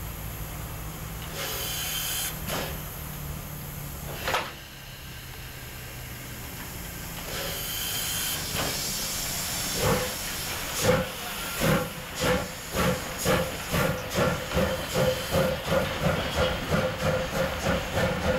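PKP Ty42 2-10-0 steam locomotive hissing steam while standing, with a single sharp knock about four seconds in. About ten seconds in it starts away: its exhaust chuffs begin slowly and quicken to about two and a half a second, while the cylinder cocks blow steam.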